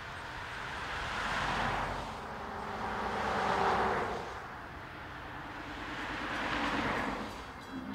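Norfolk & Western Class J 4-8-4 steam locomotive No. 611 approaching at track speed, heard as a rushing noise that swells and fades three times. Its steam whistle starts to sound right at the end.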